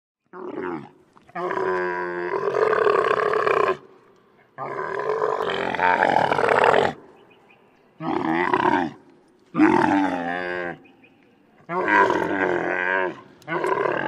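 Camel groaning in a run of about seven calls: a short one, then two long ones of about two seconds each, then four shorter ones of about a second, with brief pauses between.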